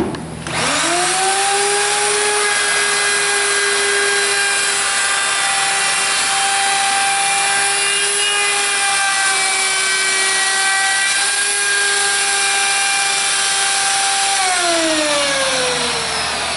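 Single-speed D-handle router with a profile bit switched on and spinning up to a steady high whine as it cuts a profile along the edge of a wooden board. It is switched off near the end, and its pitch falls as it spins down.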